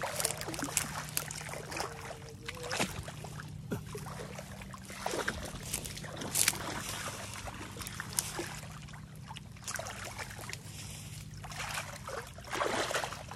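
Pond water sloshing and splashing as someone wades through a shallow lily pond, in irregular bursts with a louder splash near the end.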